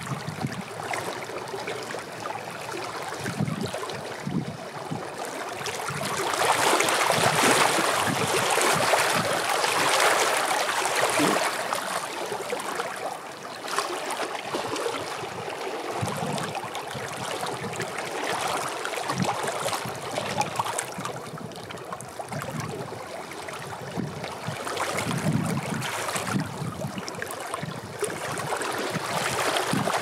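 Small wind-driven lake waves lapping and splashing over rounded shoreline rocks, a steady wash that swells louder for a few seconds about a quarter of the way through.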